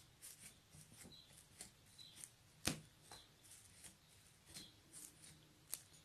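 Fingers pressing and poking into fluffy slime: faint sticky clicks and little air-bubble pops, several a second, with one sharper pop about two and a half seconds in.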